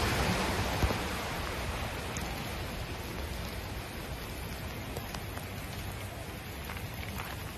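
Hail and rain falling steadily on a paved driveway: an even hiss with a few scattered light ticks of hailstones, easing slightly about a second in.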